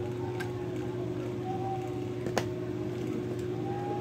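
A laptop's parts being handled during disassembly, over a steady low hum: one sharp click about two and a half seconds in, with a fainter click near the start.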